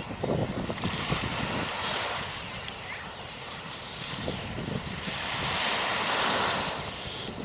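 Ocean waves washing in, one surge building about two seconds in and a larger one swelling and fading near the end, with wind rumbling on the microphone.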